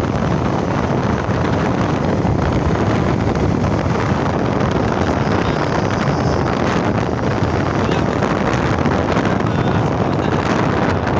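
Steady wind noise on the microphone, the rush of air from moving in the open along a road.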